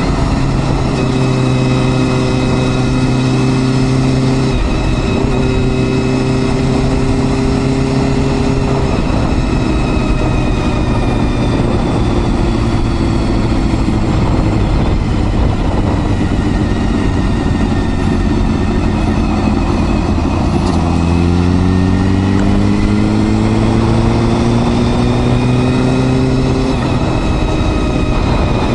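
Honda Hornet 250's high-revving inline-four engine under way. It holds steady revs with two brief breaks in the first third, then winds up through the revs for several seconds, with a constant rush of wind and road noise.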